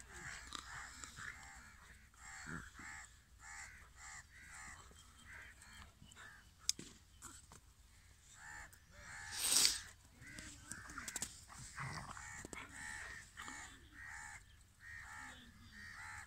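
Short pitched animal calls repeating a few times a second throughout, with a sharp click and then a louder brief hissing burst a little past halfway.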